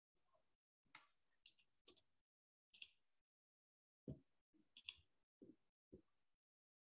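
Near silence broken by about ten faint, scattered clicks and light taps from a computer mouse and keyboard.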